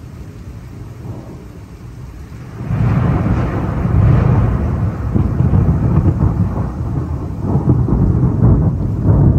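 Thunder from a nearby storm: a quieter low rumble, then a loud rolling rumble sets in just under three seconds in. It keeps going with swells, loudest about four seconds in and again near the end.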